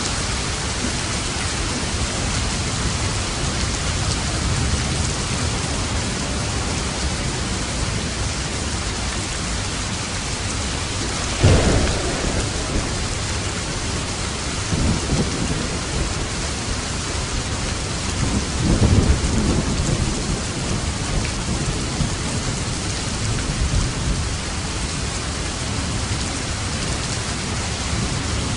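Steady heavy rain with thunder: a sharp, loud thunderclap about a third of the way in, then lower rolling rumbles a few seconds later.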